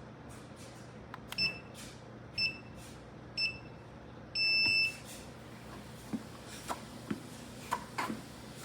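SupeRun walking pad treadmill's electronic beeper sounding three short beeps about a second apart, then one longer beep, in a countdown pattern. A few light knocks follow near the end.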